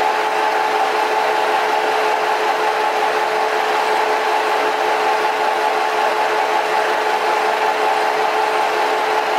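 Metal lathe running steadily with a carbide turning insert cutting an AMg3 aluminium-magnesium alloy bar: an even machine noise with two steady whining tones from the drive.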